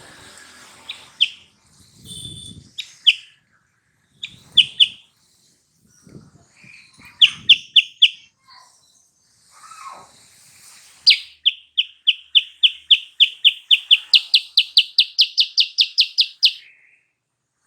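Kutilang sutra (silver-eared mesia) singing: scattered sharp chirps at first, then a long fast run of repeated whistled notes at about four a second that steps up higher and louder partway through before breaking off.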